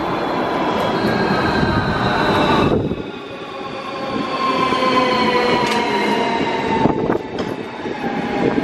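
Lastochka (Siemens Desiro ES2G) electric train coming in to a platform. Its traction drive gives a whine of several tones that slowly fall in pitch as the train slows, over the rumble of wheels on rail. The sound dips briefly about three seconds in.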